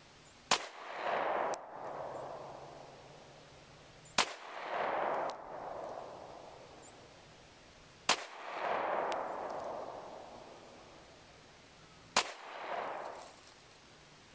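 Smith & Wesson M&P pistol in .357 SIG firing four single shots about four seconds apart, each sharp crack followed by about a second of rolling echo. The slow, deliberate pace is that of aimed precision fire, as in a one-hole drill.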